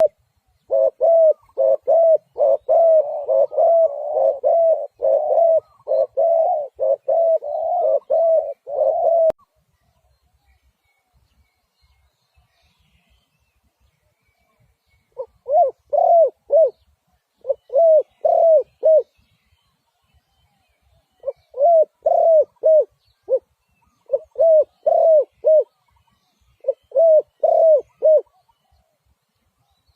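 Spotted dove cooing: a long, fast run of coos that cuts off suddenly after about nine seconds, then, after a pause of several seconds, short phrases of three or four coos every couple of seconds.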